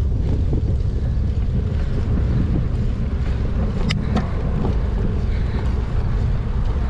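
Wind buffeting the action camera's microphone while cycling into a headwind: a loud, steady low rumble. Two sharp clicks about four seconds in.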